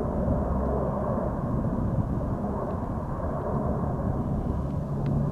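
Large turboprop air tanker flying overhead: a steady low engine drone, with a low hum that grows stronger near the end.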